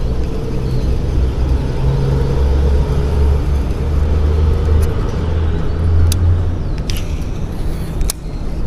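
A low, steady engine rumble, with a few sharp clicks in the second half.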